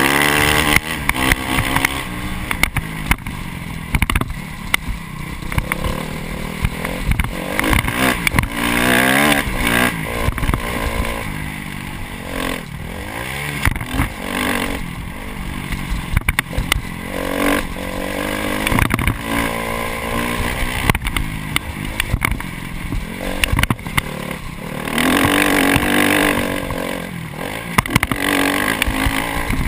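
Honda CRF 250 dirt bike's four-stroke single-cylinder engine revving hard, its pitch climbing and dropping again and again with the throttle and gear changes, heard from on the bike itself. Sharp knocks and clatter from the bike going over rough ground run through it.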